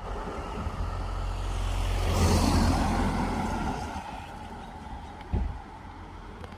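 A road vehicle passing close by, growing louder to a peak about two seconds in, then fading away. A short thump follows a little after five seconds.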